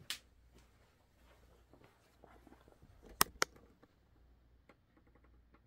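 Handling noise from the camera being picked up and moved: faint rustling and small knocks, with a click at the start and two sharp clicks close together about three seconds in.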